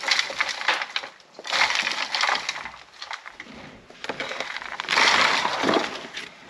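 Potting soil being poured out and broken up by hand, a crackling, crumbly rustle that comes in three bursts, the loudest about five seconds in.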